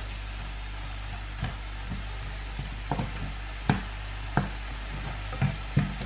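Onions and mushrooms sizzling faintly in a stainless steel frying pan while a plastic spatula stirs them, knocking and scraping against the pan about seven times at uneven intervals from about a second and a half in.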